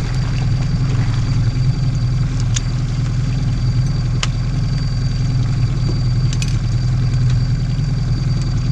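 Boat motor running steadily at low trolling speed, an even drone with a few light clicks over it.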